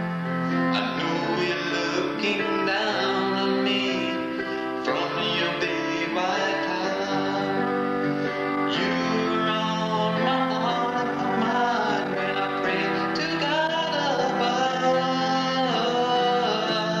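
Country-style song with guitar accompaniment and a sung vocal line.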